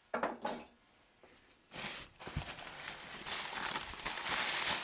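Packing paper rustling and crinkling as it is pulled apart by hand: a short rustle just after the start, then continuous, loud crinkling from about two seconds in, with a dull knock.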